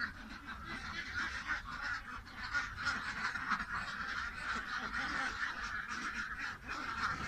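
A flock of domestic ducks quacking, many calls overlapping into a steady chatter.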